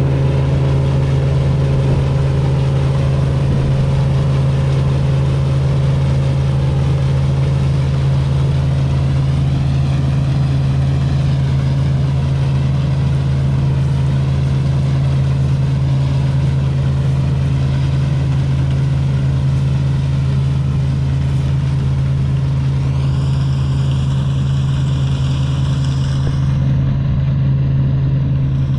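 Claas Dominator 85 combine harvester's diesel engine running at a steady speed. Near the end a high whine rises in pitch, holds for a few seconds, then dies away.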